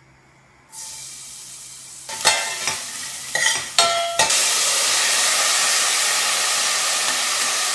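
Crushed garlic sizzling in hot oil in a stainless steel pot, with a spoon clinking against the pot as it is stirred. Just past the middle, the sizzle grows louder and steady, then cuts off suddenly.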